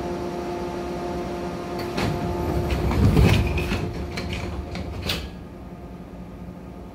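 Pneumatic passenger doors of a JR 415 series electric train sliding shut, with a heavy thud about three seconds in and a few sharp clicks and a brief hiss up to about five seconds, over a steady hum from the car.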